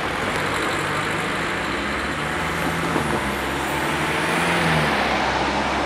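Cars pulling away across the level crossing, with engine and tyre noise building as one car passes close about four seconds in.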